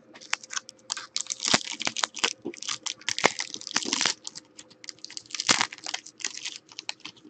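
Foil trading-card pack wrapper crinkling and crackling in the hands as it is torn open and peeled back.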